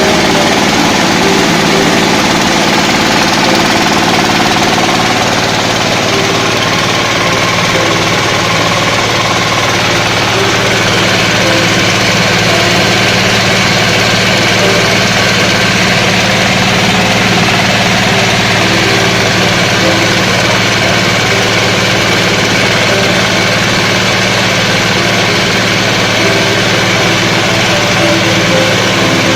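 Coffee husking machine running steadily, a constant motor-driven drone with no change in speed.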